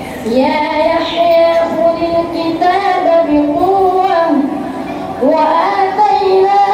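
A child reciting the Quran in the melodic tajweed style, holding long notes that bend and glide. There are two long phrases with a short pause for breath about four and a half seconds in.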